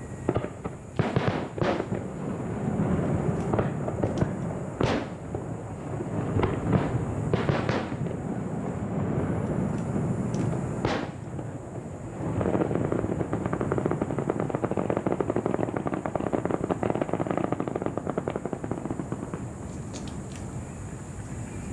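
Aerial fireworks: shells bursting with separate sharp bangs, then, from about halfway through, a dense continuous crackling of many small rapid reports.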